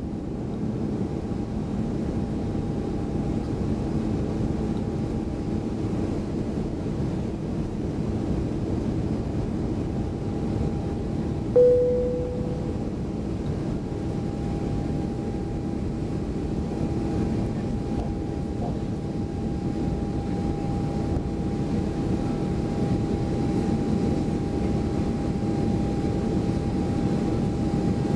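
Cabin noise of an Airbus A350-900 climbing away after takeoff: the Rolls-Royce Trent XWB engines' steady roar with a faint steady whine, heard from a window seat over the wing, slowly growing louder. About twelve seconds in, a single cabin chime rings and fades.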